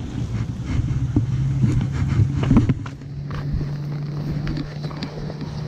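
A steady low motor hum sets in about a second in and holds, over low rumbling wind noise on the microphone. A few knocks come about halfway through.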